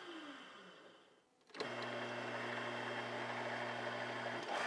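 Metal lathe motor winding down with a falling pitch and dying away, then running steadily again from about a second and a half in, while a spiral flute tap power-taps an M6 hole.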